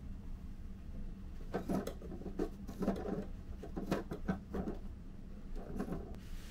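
The centre knob of a round plastic air-conditioning vent being turned by hand to adjust the airflow: irregular plastic clicks and scrapes, over a steady low hum.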